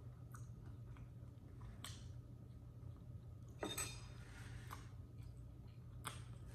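A few faint, short clicks over a steady low hum, the sharpest a little under four seconds in.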